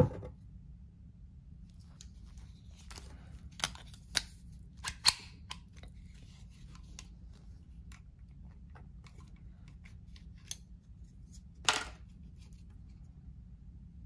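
Clicks and light plastic-and-metal handling noises from a Bersa Thunder .22 LR pistol being handled while its red plastic chamber flag is pulled out. There is a sharp click at the very start, a quick cluster of clicks about four to five seconds in, and a longer scraping click near the end.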